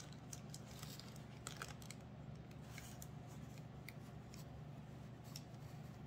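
Faint scattered clicks and light handling noises as a small copper offering bowl is held and turned in the hand, over a steady low hum.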